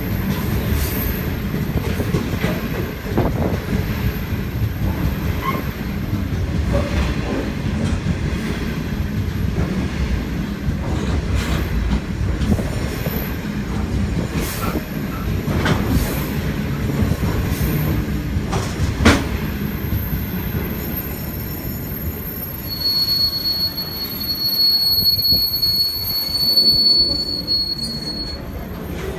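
Freight train wagons rolling past: a steady rumble with wheels clicking over the rail joints and thin, high wheel squeals. The squeal is strongest in the last third, while the rumble eases.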